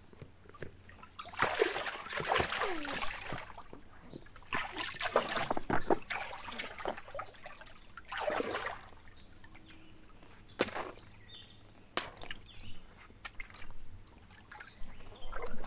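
Water sloshing and splashing in a shallow inflatable pool as a child wades and moves about in it, in three bursts over the first nine seconds, followed by a few sharp knocks.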